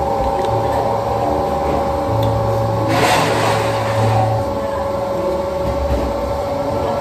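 Steady machine hum with a low rumble underneath, and a brief rushing noise about three seconds in.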